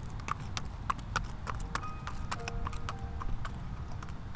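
A horse's hooves clip-clopping on asphalt at a walk, about three strikes a second, over a low steady rumble.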